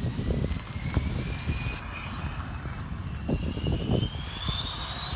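Distant Embraer Phenom 300 business jet's twin Pratt & Whitney PW535E turbofans spooling up for takeoff: a thin whine rising steadily in pitch. Gusty wind rumbles on the microphone underneath.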